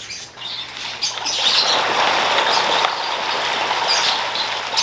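Catfish thrashing at the surface in a feeding frenzy: loud, continuous splashing that starts about a second in. Birds chirp throughout.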